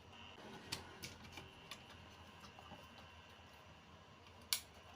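Faint clicks and taps of handling on an electronics workbench: several light ticks early on, and one sharper click about four and a half seconds in, over a faint steady high tone.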